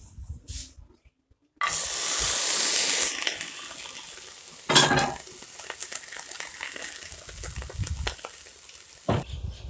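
Raw pumpkin seeds sizzling in a hot frying pan: a sudden loud sizzle about one and a half seconds in as they land, easing after a second and a half into a steady crackling sizzle. One sharp knock near the middle.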